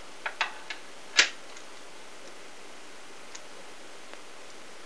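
Small clicks and taps from handling and opening the tiny MP3 player's metal casing, a few light clicks followed by one sharper click about a second in, then a couple of faint ticks.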